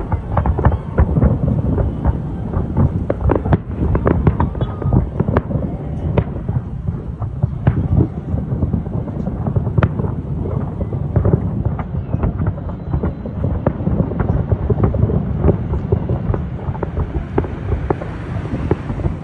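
Fireworks display: a continuous barrage of booming shell bursts and sharp cracks over a steady low rumble.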